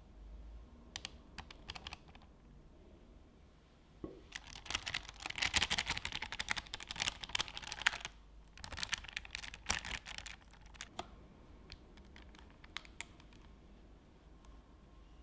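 Spatula spreading and smoothing a thick whipped coffee semifreddo mixture in a parchment-lined loaf pan, giving a quick crackly scraping with paper crinkle. It comes in two stretches, the first starting about four seconds in and the second just after eight seconds, with scattered light ticks before and after.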